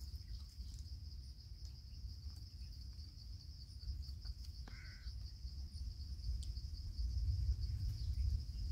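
A steady, high-pitched chorus of insects, with a low rumble underneath and one short chirp about five seconds in.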